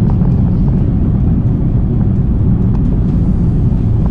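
Steady low rumble of a car driving at highway speed, heard from inside the cabin: tyre, engine and wind noise.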